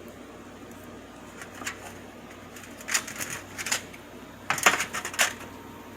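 Light clicking and clattering of small hard objects being handled, in three short clusters, the loudest a little before the end.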